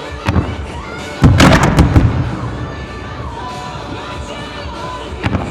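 Fireworks shells bursting over music that plays throughout: a single sharp report just after the start, then about a second in a loud cluster of booms and cracks lasting most of a second, and one more small report near the end.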